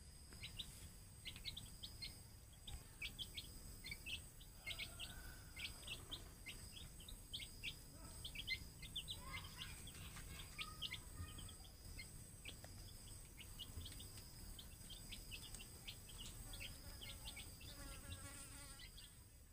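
Domestic chicks peeping while they forage: many short, high peeps, several a second, over a faint, steady high-pitched whine.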